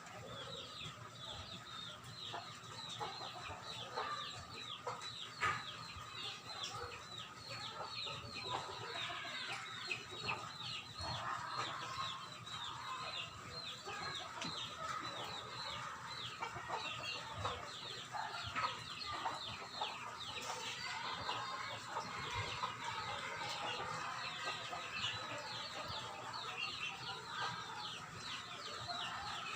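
Chickens calling: a continuous stream of short, high, falling peeps, many overlapping, like a flock of chicks.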